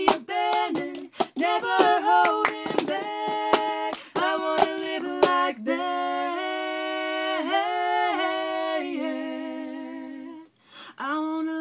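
Two women singing together unaccompanied, with a cup-rhythm beat of plastic cups tapped and slapped on the floor and hands clapping through the first half. After that the percussion stops and they hold long notes, breaking off briefly near the end before singing again.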